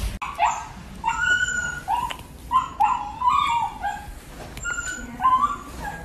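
A young puppy yipping: about a dozen short, high yelps and whimpering barks in quick runs, with a short lull a little past the middle.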